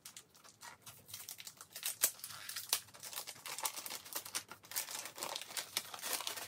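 Paper gift wrapping crinkling and rustling as it is handled and pulled open by hand, in many irregular crackles.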